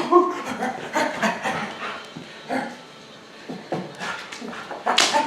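Siberian husky giving a string of short barks, yips and whines, its loudest call near the end.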